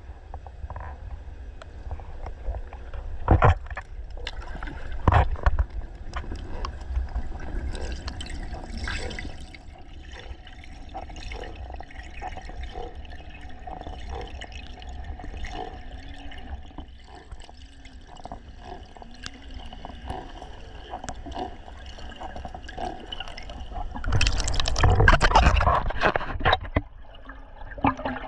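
Water gurgling and trickling, with scattered clicks and a steady low rumble, then a louder rushing surge of water about 24 seconds in.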